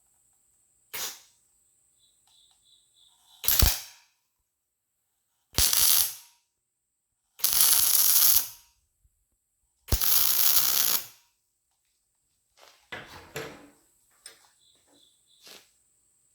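MIG welder firing in a series of short crackling bursts, each about a second long, while a nut is welded onto a broken exhaust bolt in an LS cylinder head so the bolt can be turned out. The last few welds near the end are shorter and choppier.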